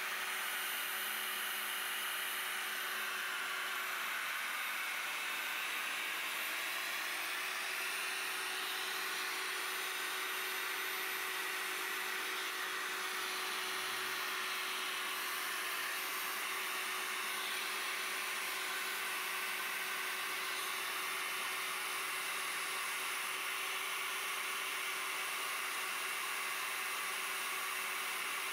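Stand-mounted electric diamond core drill running steadily as its core bit bores into the water tank's wall, cooled with water: a constant motor whine with one steady tone over a grinding hiss.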